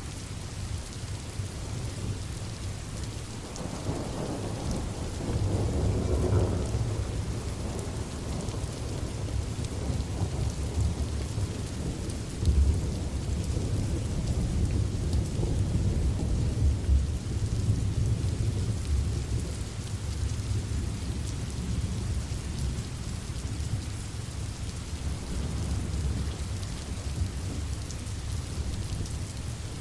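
Steady rain falling with a long roll of thunder that swells about four seconds in, rumbles loudest through the middle and slowly dies away near the end.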